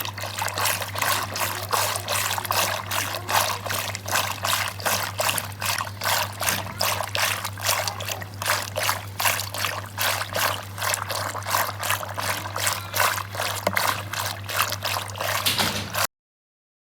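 Butter being simmered down into home-made ghee in a pan, bubbling with dense, rapid crackling over a steady low hum. It cuts off suddenly near the end.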